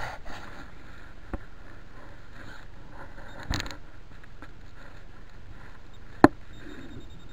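Handling and rustling noise from a moving camera while walking over a stubble field with a metal detector, with a few sharp knocks, the loudest about six seconds in.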